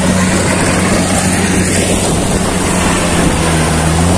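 Crawler-tracked rice combine harvester running close by: its engine drones steadily at an even low pitch under a broad, constant machine noise.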